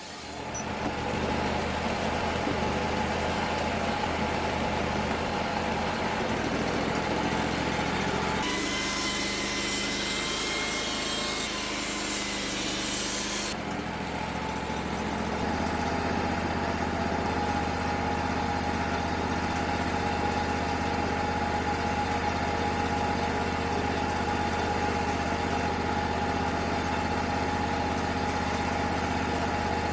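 An engine running steadily at constant speed. Its sound changes abruptly about eight and thirteen seconds in.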